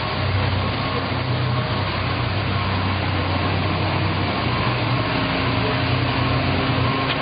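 Yamaha F225 V6 four-stroke outboard idling steadily with its lower unit in a water test tank, a constant low hum with no change in speed.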